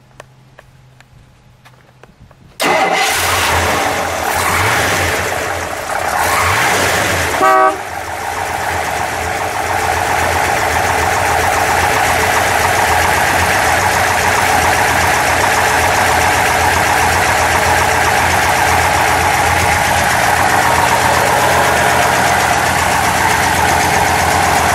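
1961 Chrysler 300G's 413 cross-ram V8 cold-starting about two and a half seconds in, revving briefly, then settling into a steady idle. A short blast of the car's horn about seven and a half seconds in is the loudest sound.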